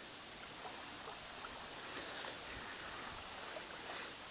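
Steady rush of shallow water running over a sandy shore.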